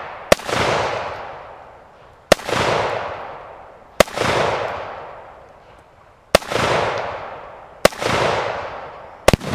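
Six gunshots fired at a Tannerite target, about one every one and a half to two seconds, the last two close together near the end. Each sharp crack is followed by a long echo that fades away.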